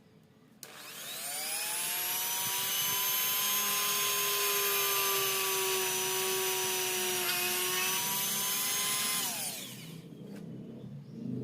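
Small electric motor whining as it spins up about half a second in, running steadily for about eight seconds, then winding down and stopping near the end.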